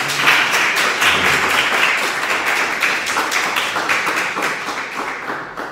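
A small seated audience applauding, many hands clapping together, dying away near the end.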